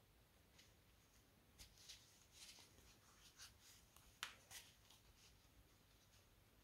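Faint rustling and light scraping of thick cotton cord drawn over a large plastic crochet hook as stitches are worked, with a sharper click about four seconds in.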